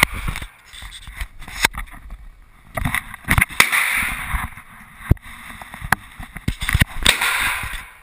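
Irregular sharp cracks and knocks from a 9 mm Smith & Wesson SW9VE pistol being fired and handled, sounding muffled, with two short stretches of rustling hiss.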